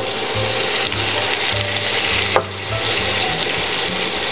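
Butter, olive oil and soy sauce sizzling around a seared filet mignon in a stainless steel pot, a steady frying hiss. A single sharp click sounds a little over two seconds in.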